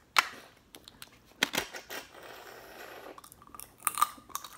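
Shellfish shells cracked and peeled by hand: a few sharp snapping clicks, with a soft rustle in the middle.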